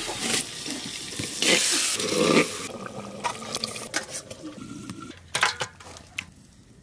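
Wet cooking sounds: marinated chicken and curry being handled, tipped and poured in clay and steel pots, with scattered clicks of utensils. A louder rushing noise comes about a second and a half in and lasts about a second.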